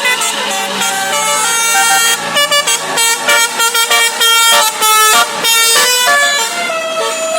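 A bus's 'telolet basuri' musical air horn playing a melody: held notes at first, then a quick run of short blasts in the middle, then held notes again.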